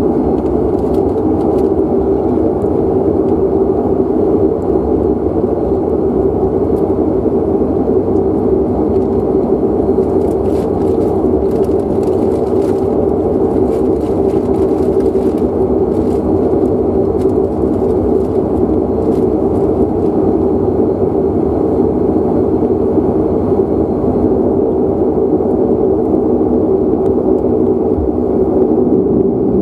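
Inside the cabin of a De Havilland Canada Dash 8 Q400, its Pratt & Whitney Canada PW150A turboprop and six-bladed propeller run steadily while the aircraft taxis: a constant, even drone with a strong low hum and no rise in power.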